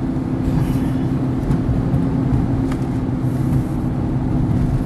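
Car engine and tyre noise heard from inside the cabin while driving at town speed: a steady drone with a held hum and a low rumble.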